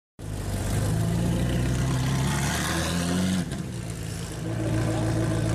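Car engine running, its pitch climbing a little as it revs, then easing off abruptly about three and a half seconds in before settling back into a steady idle.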